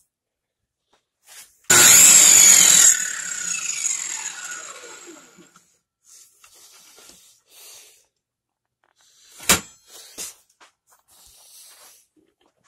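Circular saw mounted under a homemade saw table, switched on with a sudden loud start and run for about a second, then switched off, its whine falling in pitch as the blade coasts down. Two sharp knocks follow a few seconds later.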